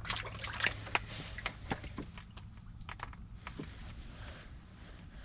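Irregular sharp clicks and light knocks of gear or the camera being handled, thinning out after about three and a half seconds, over a steady low hum.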